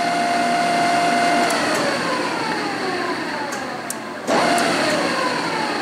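Gear whine from the spindle head of a Tominaga radial arm drill press. It runs steadily at 1510 RPM, then falls in pitch as the spindle winds down for a speed change. A sudden clunk comes about four seconds in, followed by another falling whine.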